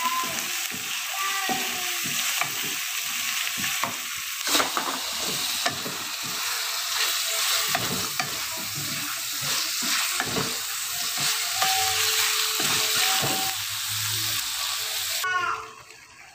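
Onion and ground garlic sizzling in hot oil in a wok while a wooden spatula stirs and knocks against the pan. Chicken feet frying in the same wok partway through. The sizzle drops away suddenly near the end.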